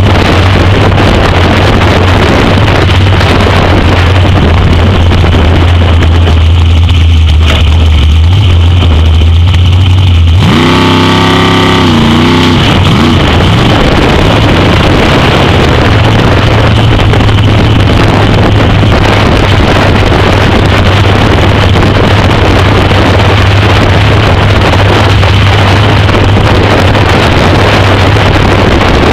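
Drag car's engine running at low speed as the car rolls along, with heavy wind buffeting the microphone. About ten seconds in, a short wavering higher tone rises and falls over the engine for a couple of seconds.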